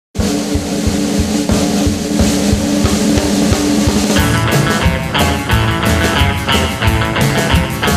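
Rock 'n' roll band music: a drum-kit beat under held notes, with electric guitar and the full band coming in about four seconds in.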